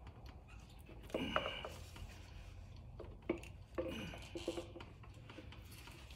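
Light clinks and knocks of metal motorcycle parts being handled and fitted at the front wheel and fork, a handful of them at uneven intervals.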